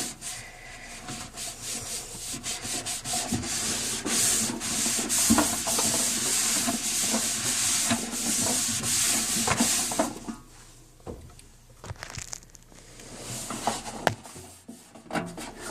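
Hand scrubbing and wiping the inside of a microwave with cleaner: a steady rasping rub that stops about ten seconds in, followed by a few light knocks and taps.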